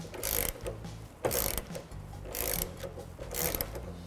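Hand ratchet with a 10 mm socket and extension clicking in four short bursts, about one a second, on each back-stroke as a bolt is backed out.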